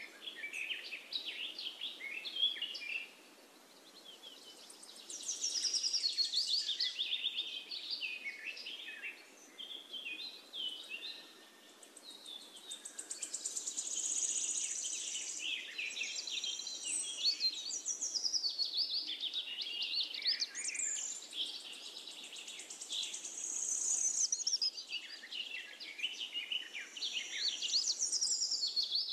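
Many small birds chirping and singing over one another in a dense, high-pitched chorus of quick calls and trills.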